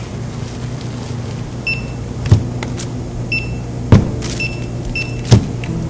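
Checkout barcode scanner beeping four times as items are scanned, with three sharp thuds of items being set down on the counter, over a steady low hum.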